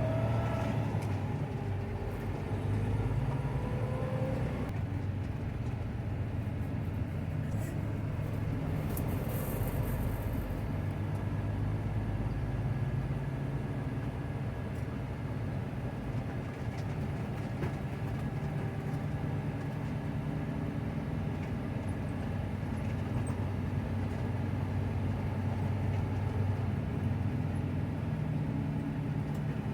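Steady low drone of a heavy diesel vehicle engine running, with a few faint rising squeals in the first few seconds and a short hiss about ten seconds in.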